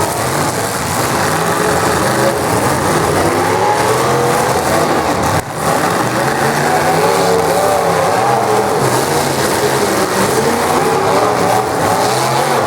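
Full-size demolition derby cars' engines revving hard and repeatedly, several pitches rising and falling over one another, over a steady noisy background.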